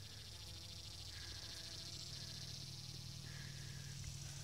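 Faint, steady low buzz of a bumblebee foraging on borage flowers.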